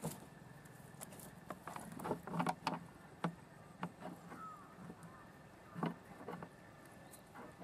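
Nylon fishing net being shaken out over a plastic crate, with irregular rustles and clicks as live prawns drop into the crate and hit the plastic.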